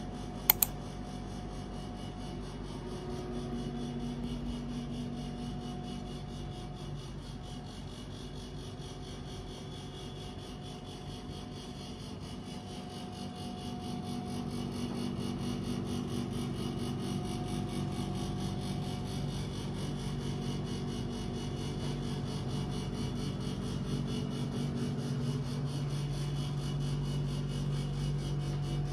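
Indoor room tone: a steady low hum that swells slightly in the second half, with one sharp click about half a second in.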